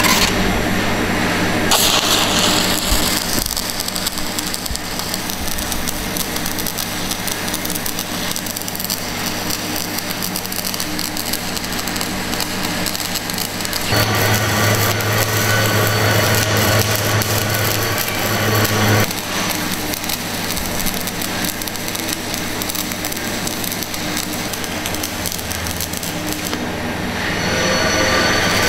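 Manual metal arc (stick) welding on steel: the coated electrode's arc crackles and sizzles steadily as the rod burns down, running smoothly on DC current. A steady low hum sits underneath.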